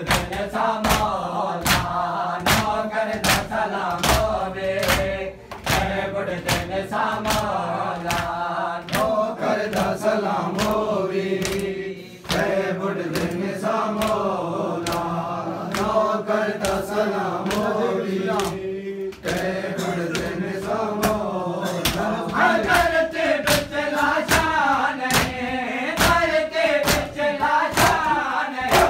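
A group of men chanting a noha in unison while beating their chests in matam, the hand strikes keeping a steady beat of about two to three a second under the voices.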